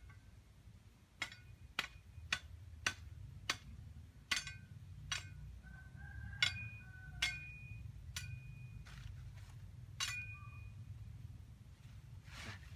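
A machete blade chopping and trimming a thin wooden stick: about a dozen sharp chops at uneven intervals, several with a brief metallic ring, over a low steady rumble.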